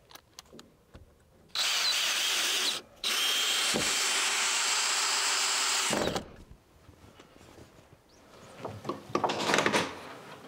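A power tool running in two bursts, a short one of about a second and then a longer one of about three seconds, each cutting off abruptly. Later come light knocks and a brief clatter.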